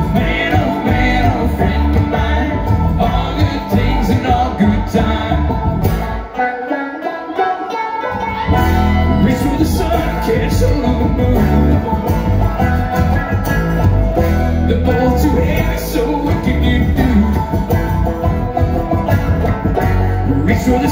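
Live bluegrass string band of banjo, acoustic guitar, mandolin and upright bass playing. The bass drops out for about two seconds around six seconds in, then comes back.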